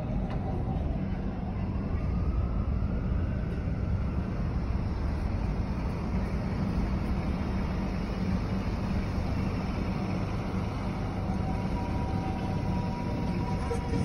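Dense city street traffic: a steady low rumble of engines and tyres, with a faint rising engine whine about a second in.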